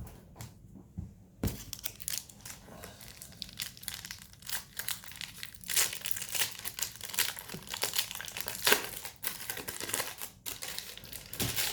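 Trading-card pack wrapper being torn open and crinkled by hand, a dense crackling that starts about a second and a half in after a few light clicks.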